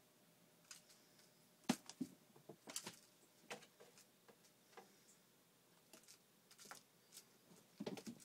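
Scattered light taps, thumps and scuffles of cats' paws and claws on the floor as they pounce and chase during play, with a sharper knock a little under two seconds in and a quick cluster of scrabbling near the end.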